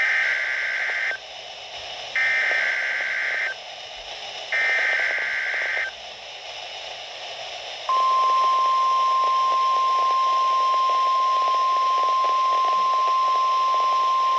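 NOAA Weather Radio weekly test received on a weather radio: three bursts of SAME (Specific Area Message Encoding) header data, warbling digital tones about a second and a half each with short gaps between, then the steady 1050 Hz tone alert starting about 8 seconds in, all over a hiss of radio static.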